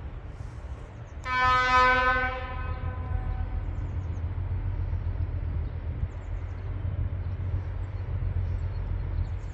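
Horn blast from a ČD class 742 diesel locomotive about a second in: one steady tone held for about a second. A low steady rumble of the approaching train runs under it and on to the end.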